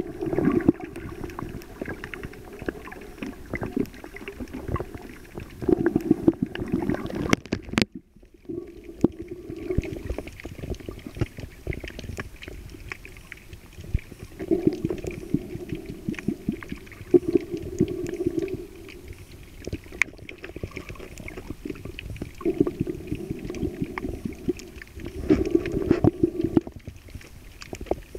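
Muffled shallow-water sound around the camera, swelling and easing every few seconds, with scattered sharp clicks throughout.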